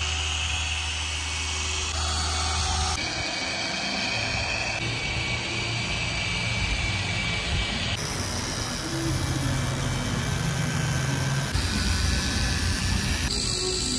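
Electric machine polisher running on a helmet's lacquered shell, test-polishing with cutting compound. Its tone shifts abruptly several times.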